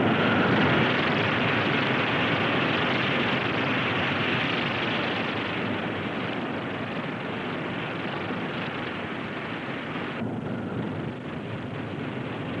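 Corporal missile's acid-aniline liquid-fuel rocket motor firing at launch and lift-off: a loud, steady rushing noise that slowly fades and turns duller about ten seconds in.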